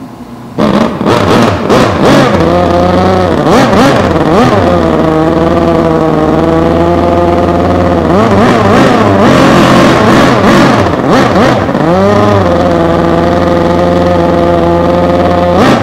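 Racing outboard engine of a small outboard hydroplane running flat out. It cuts in suddenly about half a second in, and its pitch dips and climbs back several times as the throttle comes off and on again.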